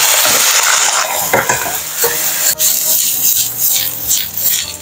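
Oyster omelette frying in hot oil in a frying pan: a loud, steady sizzle that thins out after about two seconds. A single sharp click comes about halfway through.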